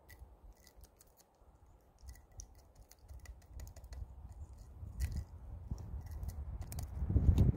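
A knife blade scraping and chipping hardened tree sap off the bark of a conifer trunk: a run of small crisp clicks and scrapes, growing louder toward the end.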